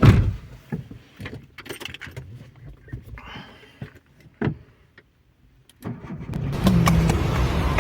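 Keys jangling and scattered clicks from the ignition, then after a short hush a car engine cranks and starts about six seconds in and settles into running.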